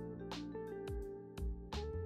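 Background music with a steady beat: held notes over a bass line and regular drum strokes.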